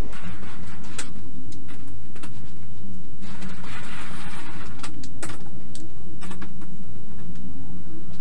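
Hand-held roller tool for sheet metal worked along the edge of a steel sheet: irregular metallic clicks and knocks, with a stretch of scraping a few seconds in. A steady low hum runs underneath.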